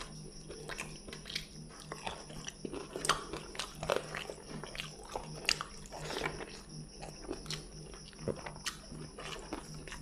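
Close mouth sounds of a person eating fried fish and rice by hand: irregular crunches and wet chewing, with a steady low hum underneath.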